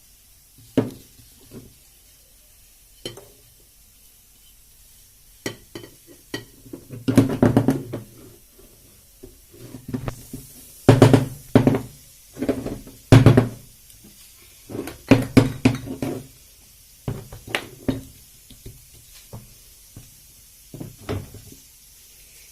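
Glass jars and a utensil clinking and knocking as chopped peppers are packed into them, in an irregular run of sharp taps with heavier thuds around the middle.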